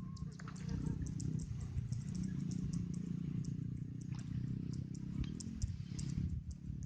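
Steady low outdoor rumble with a scatter of short, high ticks, several a second.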